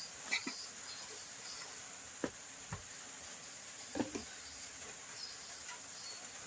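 Faint scattered knocks and taps, four or five in all, with the loudest around the middle, over a steady hiss.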